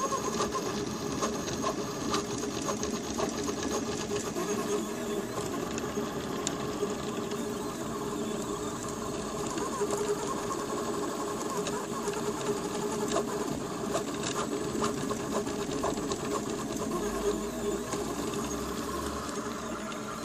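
Delta 3D printer's Nema17 stepper motors driving the print head at very high speed, a continuous buzzing whine full of quick ticks as the head darts and changes direction. A low hum joins near the end.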